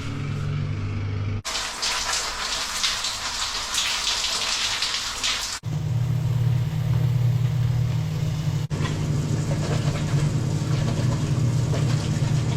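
A few short clips cut together: water spraying hard from a tap or shower, then from about six seconds in a steady low motor hum with a hiss over it.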